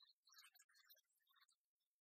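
Near silence, with faint scattered ticks and crackle.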